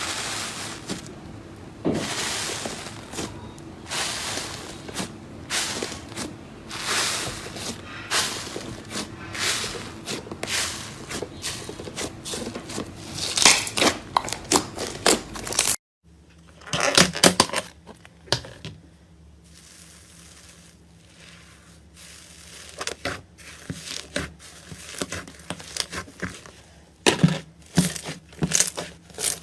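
Slime being squeezed and pressed by hand, giving dense crunching and crackling. An abrupt cut a little past halfway switches to another slime with sparser, sharper clicks and pops.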